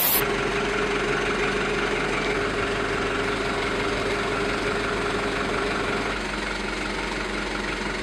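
Engine of a truck-mounted aerial work platform running steadily, with a constant hum, while its boom lifts the bucket.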